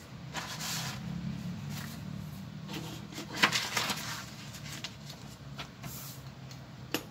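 Sheets of drawing paper being handled on a cutting mat: lifted, flipped and slid, rustling in a burst about half a second in and a louder one around three and a half seconds in, with a few small clicks, the last near the end, over a low steady hum.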